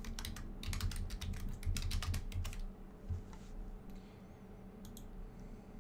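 Typing on a computer keyboard: a quick run of keystrokes for about two and a half seconds, then a few scattered single clicks.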